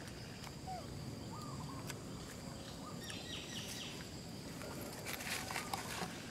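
Outdoor ambience: a steady, high insect drone with a few short, faint chirping calls and a quick run of four chirps about three seconds in.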